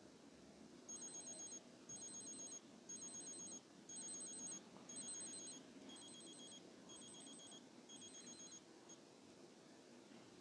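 Alarm of a Seiko quartz World Timer Alarm Chronograph watch beeping: eight short bursts of rapid high-pitched beeps, about one burst a second, stopping about nine seconds in.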